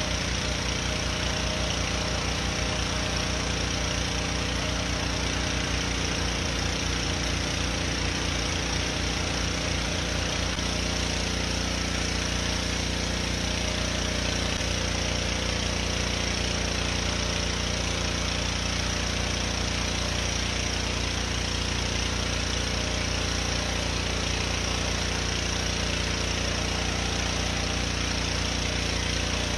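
Pressure washer running with a steady machine drone and hiss. About ten seconds in, a low throbbing in the drone stops and it runs smoother.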